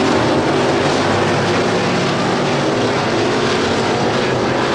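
Hobby stock dirt-track race cars running at racing speed, several engines heard together as one loud, steady sound.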